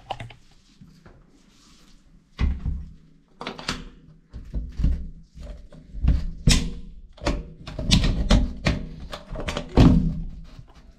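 A door's metal barrel bolt being worked by hand, with the door knocking in its frame: a click at the start, then from about two seconds in a long run of irregular knocks and thuds as the bolt is pushed and jiggled.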